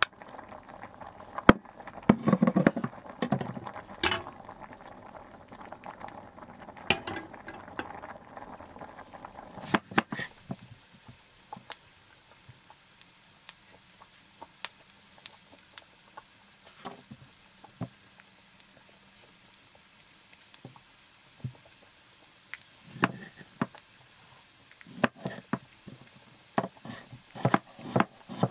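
Cooking sounds: a utensil clinking and scraping against a pot as food is stirred. About ten seconds in the clatter gives way to sparse light clicks and taps.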